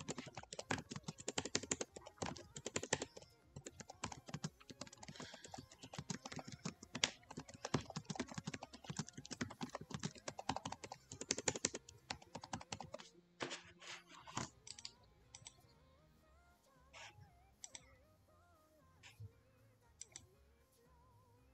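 Computer keyboard typing: a fast, steady run of keystrokes for about twelve seconds, then only a few scattered single keystrokes.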